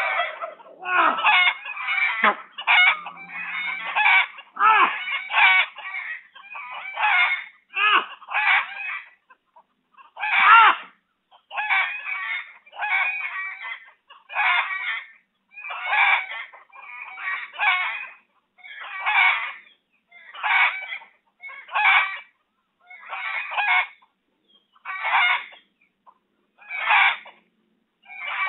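Domestic fowl calling over and over in short calls, about one a second, settling into an even rhythm after about ten seconds. A few lower sliding sounds come in under the calls in the first few seconds.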